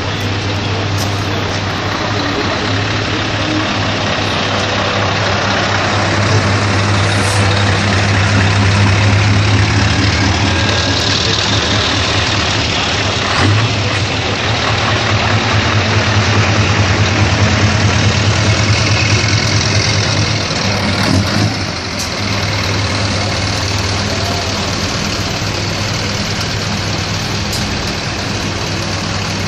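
Scania R560's 16-litre V8 diesel running steadily at low revs, heard close to its chrome triple-tip side exhaust, with a deep, even pulsing note and small swells in loudness.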